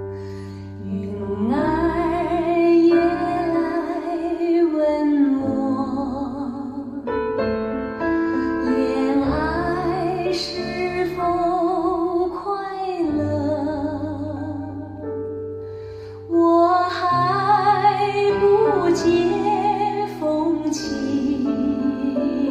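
A recorded slow ballad played back through a hi-fi speaker system: a melody line with vibrato over piano and held bass notes, with no words sung in this stretch.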